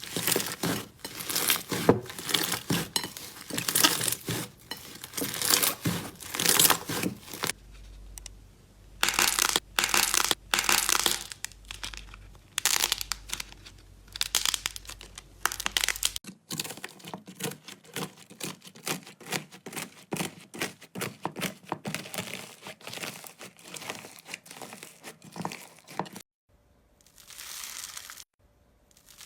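Slime being squeezed and pressed by hands, making dense runs of crackling, clicking pops. The texture changes abruptly a few times, about a quarter, half and most of the way through.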